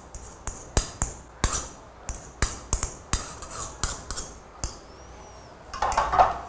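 A metal fork clinking and scraping against a ceramic bowl in a string of sharp, irregular clicks as beaten eggs are scraped out of it, followed near the end by a short scraping of a spatula stirring the mashed potato and salt cod mixture.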